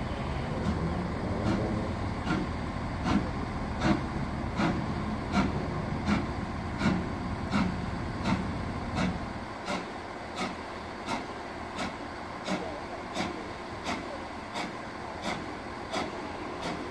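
Two-cylinder LNER B1 steam locomotive 61306 Mayflower working slowly, its exhaust chuffing evenly at about three beats every two seconds. Under the beats a low rumble drops away about halfway through.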